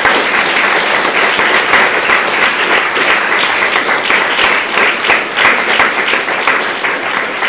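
Lecture-hall audience applauding: many people clapping steadily after the closing thanks, dying down a little toward the end.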